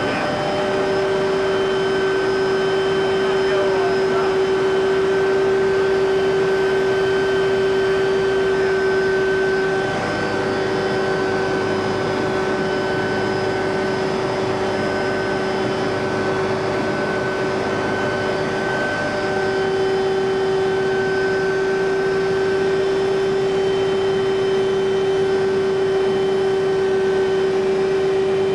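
Helicopter cabin noise in flight: a steady whine over a dense rushing noise from the rotor and airflow. The whine drops out briefly about ten seconds in and again near nineteen seconds.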